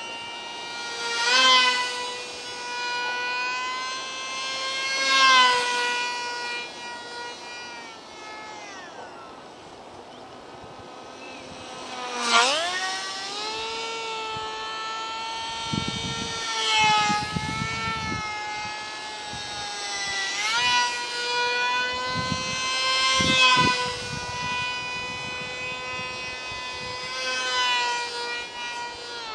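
Ultra-micro RC flying wing's small electric motor and propeller whining in flight, a high steady tone whose pitch rises and falls with throttle. It swells louder several times, with a quick dip and climb in pitch about twelve seconds in.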